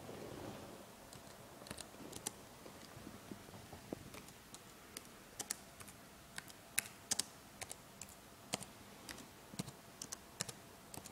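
Computer keyboard being typed on: single keystrokes at an irregular, unhurried pace, sometimes two or three in quick succession with pauses between.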